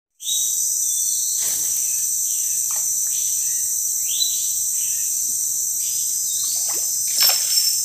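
Steady, high-pitched chorus of rainforest insects, several pitches droning together without a break, with faint short bird chirps now and then and a brief louder noise near the end.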